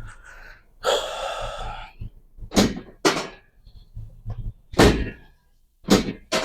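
A series of about five sharp thuds during a chiropractic adjustment of a patient on a treatment table, the loudest in the middle, after a second-long breathy rushing noise about a second in.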